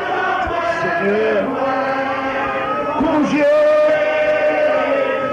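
Congregation of many voices singing a slow worship chant together, with long drawn-out held notes and a note sustained strongly near the end.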